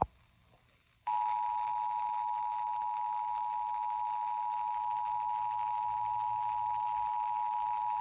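Emergency Alert System attention signal, the steady two-tone alert (853 and 960 Hz together) of a monthly EAS test, heard through a portable FM radio's speaker. It starts about a second in, after a short click and a moment of hiss, and holds at one steady pitch.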